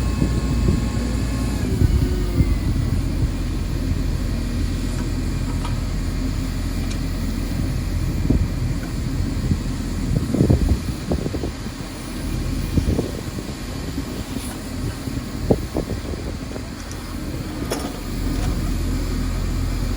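A heavy truck engine, most likely the concrete truck's, running steadily as a low hum, with a few short knocks and clatter scattered through.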